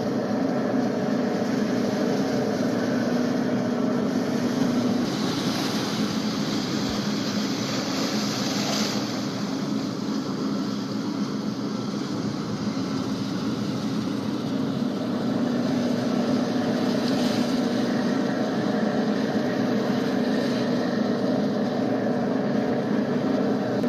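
A fishing boat's engine runs steadily with a constant low drone. A rushing hiss swells over it between about five and nine seconds in, and again briefly later.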